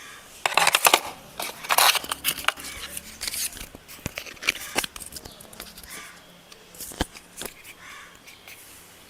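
Rustling and crinkling of smartphone packaging being handled and opened, with scattered clicks and taps; a sharp click comes about seven seconds in.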